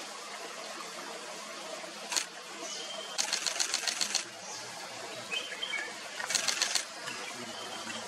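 Camera shutter clicking: a single shot, then a rapid burst of about nine clicks a second lasting about a second, and a shorter burst about two seconds later. Faint thin bird whistles sound behind them.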